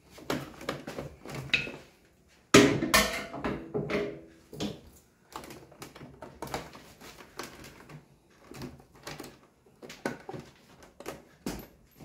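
Plastic clicks, knocks and rattles from hands working among the filter housings, tubing and wiring of an RO water purifier, with the loudest knock about two and a half seconds in. No beep is heard.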